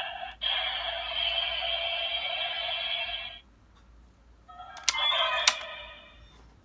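Electronic sound effects: a buzzy, ringing tone lasting about three seconds. After a short lull a second, shorter tone follows, with two sharp clicks in it.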